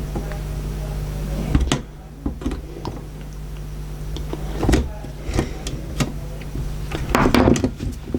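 Clicks, knocks and rattles of a VCR's small plastic and metal loading-mechanism parts being worked loose by hand, loudest in a cluster about seven seconds in. A steady low hum stops after about the first two seconds.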